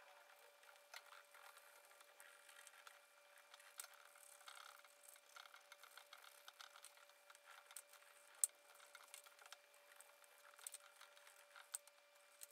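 Near silence: faint, sped-up oil pastel strokes on paper, heard as scattered light ticks and scratches over a steady faint hum.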